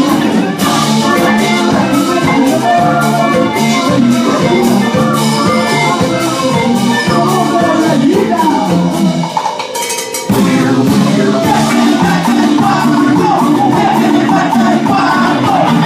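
A live band playing, with electric guitar and drum kit. The drums and bass drop out for about a second near the middle, then the full band comes back in.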